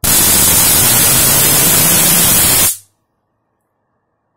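Loud, steady high-voltage arc discharging from a pair of homemade PVC-and-foil capacitors charged by a ZVS driver. It cuts off suddenly a little under three seconds in.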